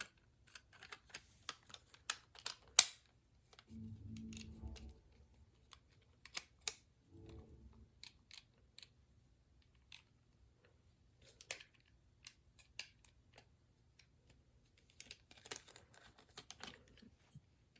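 Small plastic toy parts clicking and tapping as they are handled and fitted together, with irregular sharp clicks throughout and a short low rubbing of handling about four seconds in.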